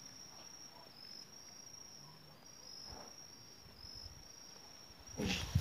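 Insects trilling: a steady, high-pitched shrill with brief breaks. A short rustling knock sounds near the end.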